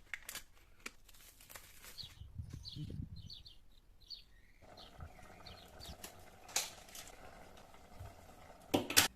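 Scattered sharp clicks and knocks, with a few short high chirps between about two and four seconds in and a faint steady hum from about halfway. The loudest is a sharp knock near the end.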